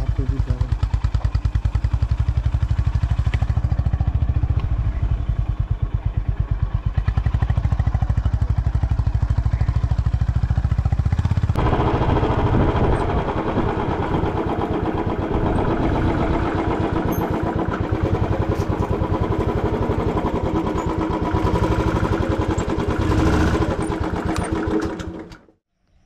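Motorcycle engine running with an even, rapid low beat; about eleven seconds in it grows louder and fuller. The sound cuts off suddenly just before the end.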